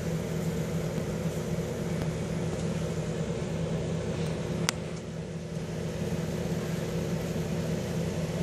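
Steady low mechanical hum of running aquarium equipment, with one sharp click about four and a half seconds in.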